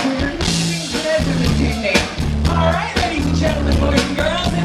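Live rock band playing, with drum hits and a low bass riff that repeats about once a second under sliding melodic lines.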